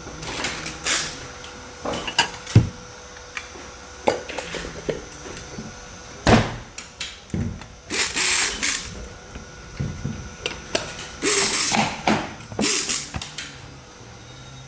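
Ceiling fan assembly work: irregular clicks and knocks of parts and tools being handled, with several short rasping bursts, over a faint steady hum.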